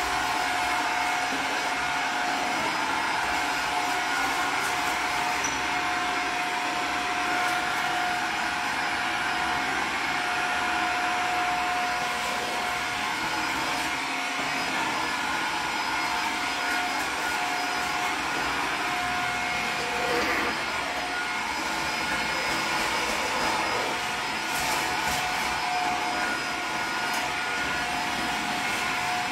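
Vacuum cleaner running steadily, a continuous rushing noise with a constant motor whine.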